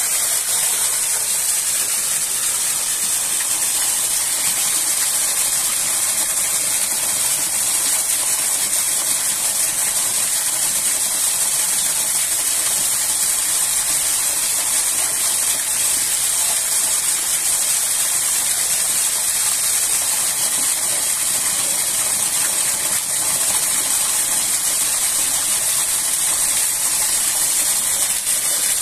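Rushing water of a waterfall, a loud steady hiss that holds without a break.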